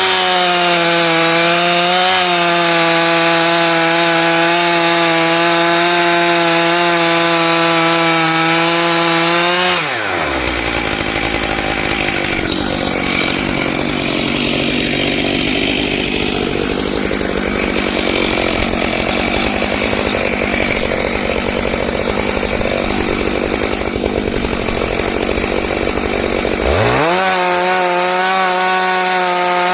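Stihl MS661 chainsaw with a ripping chain running on a chainsaw mill, milling a log. About ten seconds in the engine note drops sharply and the sound turns rough and noisy for a long stretch. Near the end the engine revs back up to a clean, steady note.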